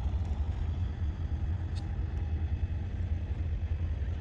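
Steady low rumble of a car's engine and road noise heard from inside the cabin while driving.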